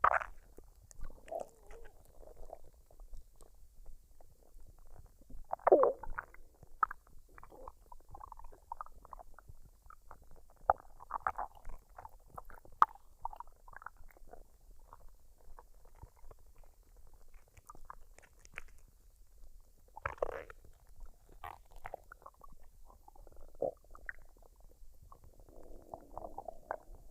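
A woman's stomach gurgling and rumbling as it digests a meal, in irregular short bursts with a few sharp pops between them; the loudest gurgle comes about six seconds in.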